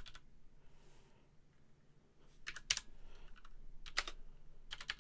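Typing on a computer keyboard: scattered keystroke clicks, a pause of about two seconds after the first few, then the keystrokes resume.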